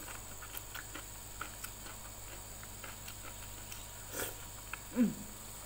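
Close-up mouth sounds of a person eating rice and sardine by hand: small wet chewing clicks and lip smacks throughout. A sharp breath comes about four seconds in, and a brief falling 'mm'-like voice sound, the loudest moment, about a second later.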